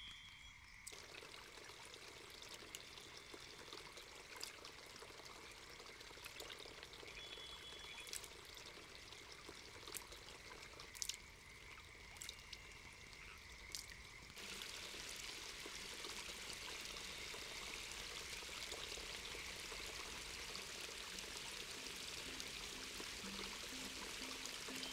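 Forest stream water trickling, with a few sharp drip-like clicks. About fourteen seconds in it changes to the louder, steady rush of flowing stream water.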